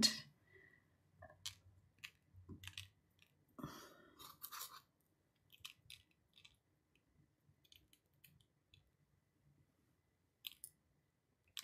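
Kosher salt being pinched and sprinkled onto a wet watercolour wash: faint, irregular crackles and ticks of the grains, with a denser cluster about four seconds in.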